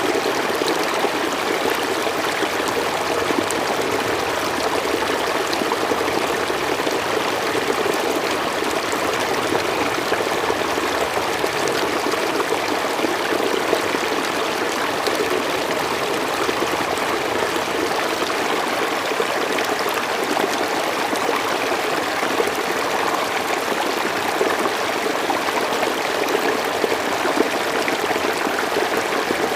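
River water flowing and rushing over its bed in a steady, unbroken wash, with small splashes and gurgles through it.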